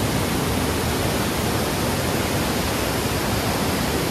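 Water rushing at a dam: a loud, steady, even roar with no change.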